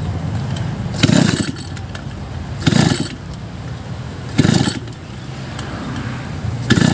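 An engine being cranked by hand that won't catch: four short rattling cranking strokes, roughly one every second and a half to two seconds, over a steady low hum.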